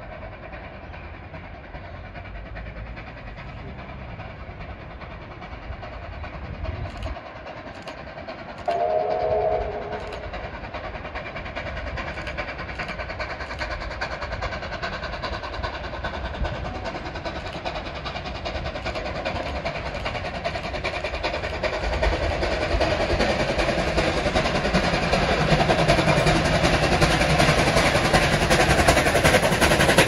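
Steam locomotive 3801, an NSW 38 class 4-6-2, approaching along the rails and growing steadily louder as it draws level. About nine seconds in its whistle sounds once, a chord of several tones lasting just over a second.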